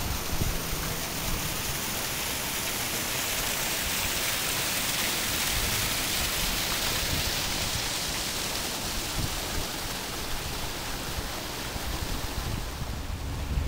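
Water gushing from a canal lock gate into the lock below: a steady rushing splash of falling water, loudest about halfway through.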